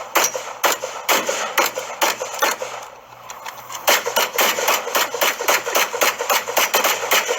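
Rapid gunfire from magazine dumps: shots a few a second, a short lull about three seconds in, then a faster string of shots at about four to five a second.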